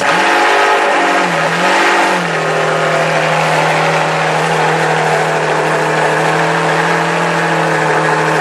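Ferrari Enzo's V12 engine, fitted with FXX exhausts, running just after start-up. The revs rise and fall twice in the first two seconds, then it settles into a steady idle.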